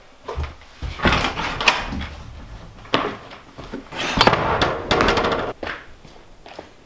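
A house door being handled, with a sharp click, knocks and footsteps, followed by a longer stretch of crunching that fits steps on a gravel drive.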